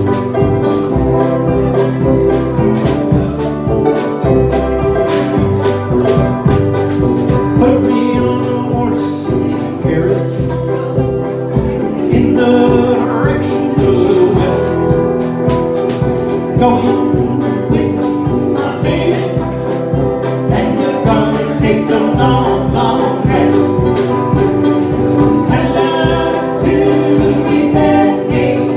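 Live acoustic-electric band playing an upbeat two-step tune: banjo, upright bass, Nord Electro keyboard and electric guitar together, with a steady bouncing beat.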